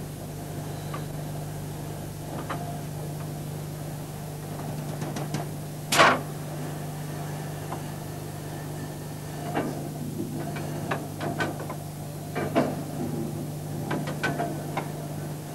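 Steel fabrication shop machinery: a steady machine hum, one heavy bang about six seconds in, then a run of lighter clanks and knocks in the second half.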